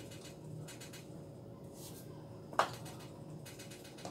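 A high-heeled mule's stiletto heel setting down on a terrazzo floor with one sharp click about two and a half seconds in, and a fainter click near the end, over a faint steady hum.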